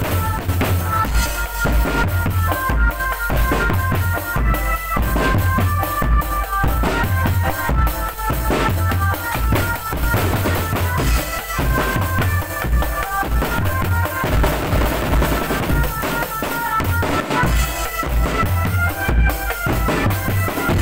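Drum band playing: bass drums and snares keep a steady beat under a high melody that steps from note to note.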